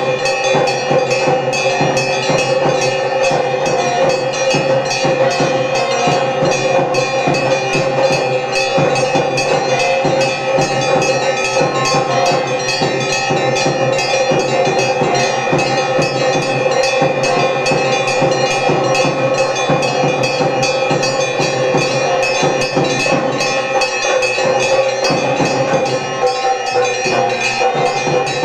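Temple bells ringing continuously during a lamp-worship ritual, with many fast strikes over steady ringing tones.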